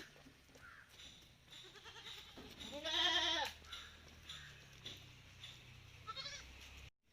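Malabari goat bleating: one loud, wavering bleat about three seconds in, with fainter bleats before and after it.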